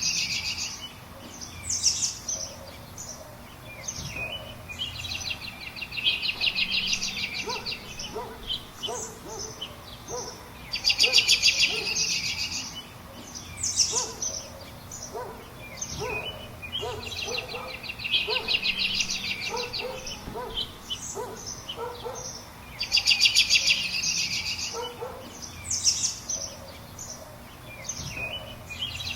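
Mixed birdsong. A loud, fast high trill comes back about every twelve seconds: at the start, about eleven seconds in and about twenty-three seconds in. Between the trills are short high chirps and a run of lower, short repeated notes.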